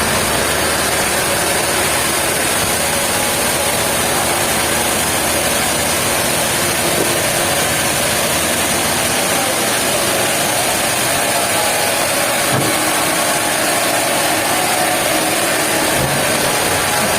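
Machinery engine running steadily at a constant, loud level, with no break or change in pitch.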